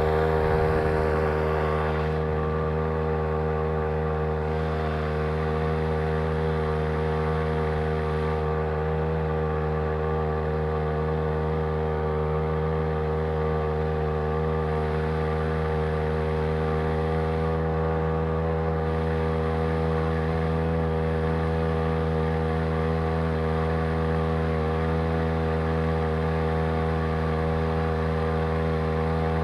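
Homemade outboard motor, a Champion T516 two-stroke trimmer engine driving a Sailor 2.0 lower unit, running under way at a steady speed as a constant engine drone with no change in revs.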